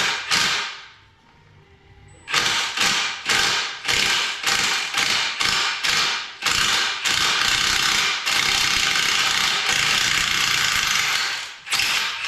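A hand-held power tool run in repeated short bursts, about a dozen, then held for one longer burst of about three seconds, each burst starting sharply and cutting off.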